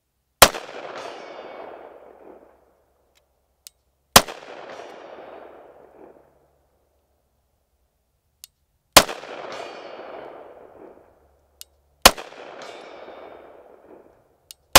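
Pistol shots fired slowly, five in all, three to five seconds apart. Each is followed by an echo that dies away over about two seconds, and a faint click comes shortly before each of the later shots.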